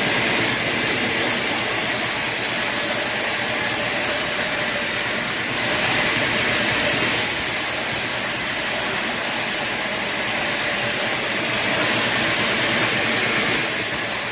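Steady machinery noise with a strong hiss, its high hiss shifting abruptly every few seconds.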